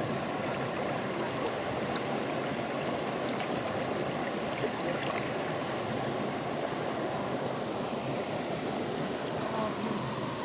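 Fast-flowing water of the Banias stream rushing steadily, with no breaks.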